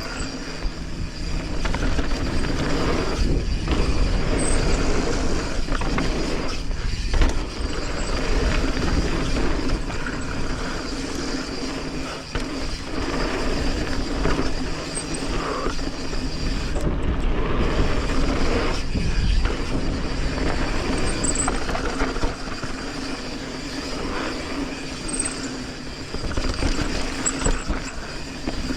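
Mountain bike riding fast down a dirt trail: steady wind rush on the camera microphone, with tyres rolling on dirt and the bike rattling over bumps, the loudness swelling and dipping.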